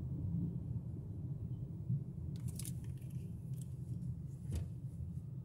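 Car cabin noise while driving: a steady low rumble of engine and tyres on the road. A few crisp clicks sound about halfway through, and one sharp click near the end.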